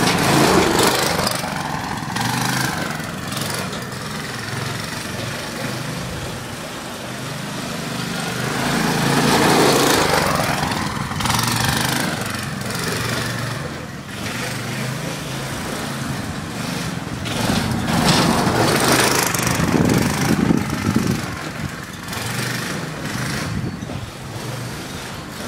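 Go-kart's small engine running as it drives laps on grass, swelling louder with a rise and fall in pitch each time it passes close: near the start, about ten seconds in, and again around eighteen to twenty seconds.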